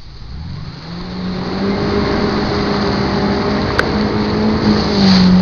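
Jet ski engine revving up to a high, steady full-throttle note within the first second or so, with rushing wind and water noise growing louder. A single sharp click comes a little past the middle.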